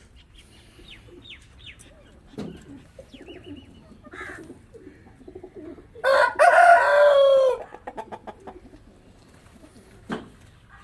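A rooster crows once, loud, about six seconds in, its call dropping in pitch at the end, while hens cluck softly around it.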